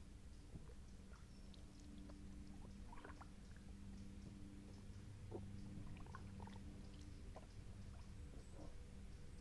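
Near silence on still water: faint, scattered drips and small water ticks around a gliding kayak, over a low steady hum.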